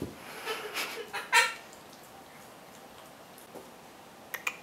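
Pug giving a few short, high whines, the loudest about a second and a half in. A few light clicks follow near the end.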